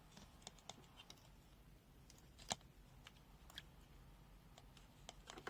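Near silence broken by faint, scattered light clicks and taps as temperature probes are handled and moved into a cup of cool water. One sharper tap comes about two and a half seconds in.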